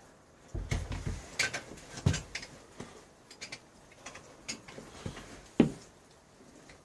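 Irregular clicks and knocks of metal tools and parts being handled while working on a pocket bike, with a cluster of dull knocks in the first second and one sharp, louder knock about five and a half seconds in.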